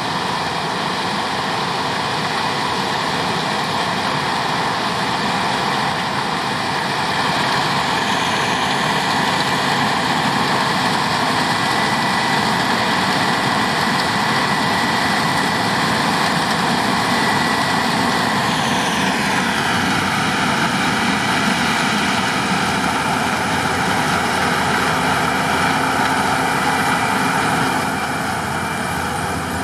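New Holland CX 7.90 combine harvester threshing maize with an eight-row Dominoni corn header: a loud, steady machine noise with a high whine. About two-thirds of the way through, the whine drops in pitch.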